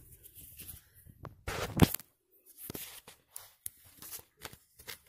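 Scattered clicks, knocks and rustles of handling, with one louder bump just under two seconds in.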